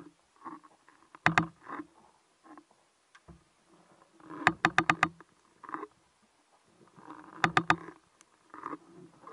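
Underwater sounds picked up through a camera's waterproof housing: muffled knocks and thuds, with three short runs of sharp, rapid clicks about a second in, about halfway and near the end.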